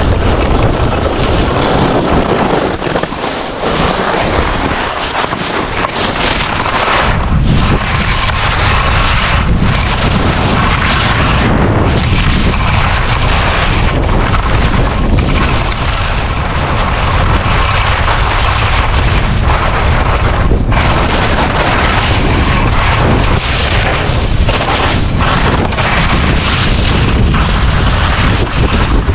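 Heavy wind buffeting on an action camera's microphone while skiing fast, with the hissing scrape of skis carving through packed snow. It is loud and unbroken, with a slight dip about three to six seconds in.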